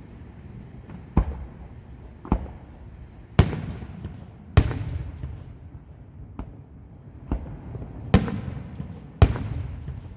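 Aerial fireworks display: about eight shell bursts going off at irregular intervals of roughly a second, the four loudest followed by a brief fading crackle, over a steady low rumble.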